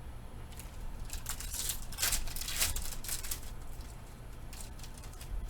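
Trading cards being handled and slid against one another: a run of dry rustles and scrapes, loudest about two to three seconds in, with a few more near the end.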